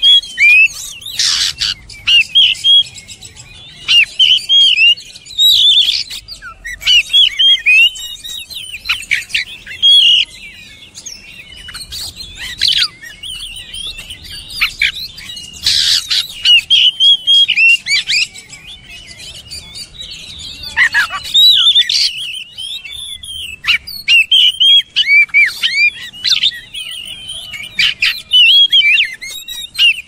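Oriental magpie-robin (kacer) singing: a fast run of varied whistled and chattering phrases, each lasting a second or two, with brief pauses between them.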